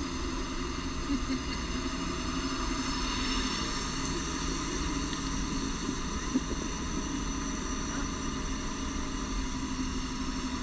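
Steady hum of a car running, heard from inside the cabin, with one brief click about six seconds in.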